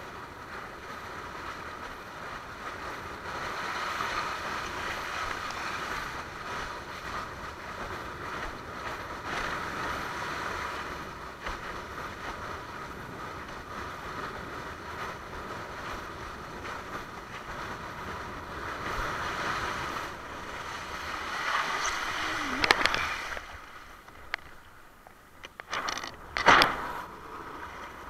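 Water rushing and hissing past a sailing windsurf board, with wind on the microphone, swelling and easing as the board moves. Near the end it quietens, broken by two sudden louder splashes.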